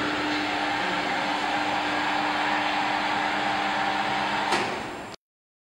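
Electric drive motor of an automatic stir-fry machine running with a steady whirring hum as the stirring arm lifts out of the pot at the start of a cooking program. About four and a half seconds in it gives a short knock and winds down, then cuts off.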